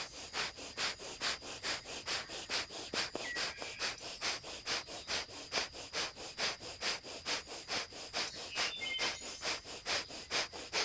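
Kapalabhati (fire breath): rapid, forceful exhalations through the nose in a steady rhythm of about three a second.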